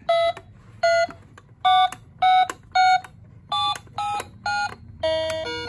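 Children's musical toy telephone beeping as its keypad buttons are pressed one after another: eight short electronic tones at differing pitches. About five seconds in, an electronic tune starts playing.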